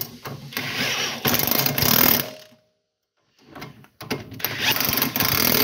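Cordless impact wrench running 14 mm bolts down, in two runs of about two seconds each with a short pause between.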